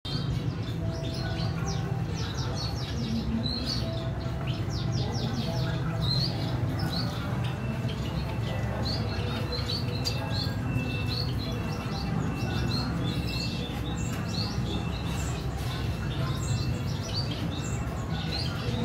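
Small cage birds chirping in quick, repeated high notes throughout, over a steady low hum.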